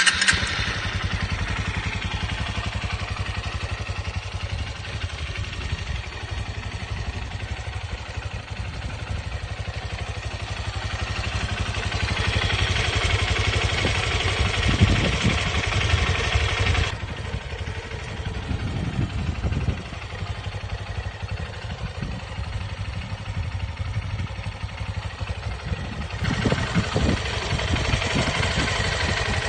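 Honda CRF150L motorcycle's single-cylinder four-stroke engine running. It comes in abruptly at the start and runs steadily, gets louder for a few seconds past the middle, drops back suddenly, then picks up again near the end.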